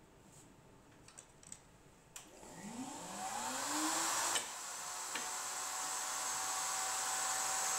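A few light clicks, then a table-mounted router switched on: the motor winds up in pitch over about two seconds and then runs steadily at full speed, ready for a pass with the board.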